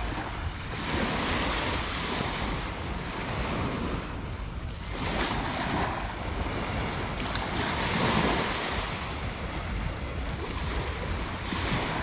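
Small sea waves breaking and washing up the sand, swelling and ebbing every few seconds, with wind rumbling on the microphone.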